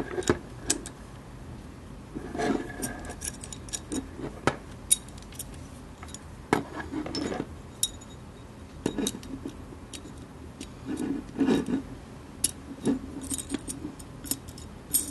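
Small metal parts of a Tanfoglio Witness 1911 CO2 air pistol being handled and fitted back into the frame: scattered light metallic clicks and short scraping rubs.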